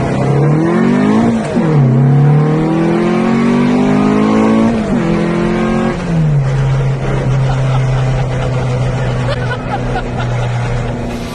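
Car engine revving: it rises quickly and drops back, climbs steadily for about three seconds and falls again around five seconds in, then holds a steady pitch.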